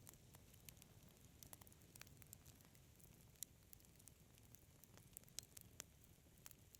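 Fireplace fire crackling faintly: scattered sharp snaps and pops, a few louder than the rest, over a low steady rumble.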